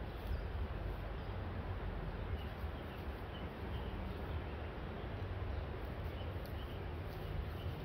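Outdoor background: a steady low rumble with faint bird chirps now and then.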